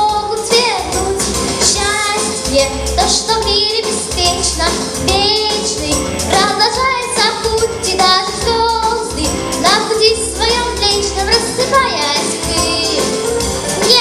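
A ten-year-old girl singing held, wavering notes with vibrato over a pop backing track with a steady beat.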